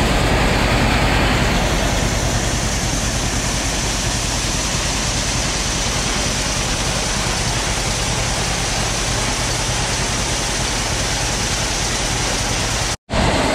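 Shelled corn pouring from a grain auger into a semi's grain trailer, a steady rushing hiss, over the steady running of the John Deere B tractor's two-cylinder engine driving the auger.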